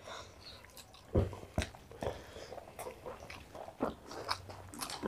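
Close-miked eating sounds: chewing and wet mouth smacks, with a handful of short sharp clicks spread through, as rice and curry are eaten by hand.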